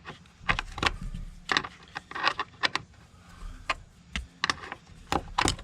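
A hand wrench clicking and clinking against a bolt as it is turned and reset, tightening a battery fitting: a string of short, irregular metallic clicks.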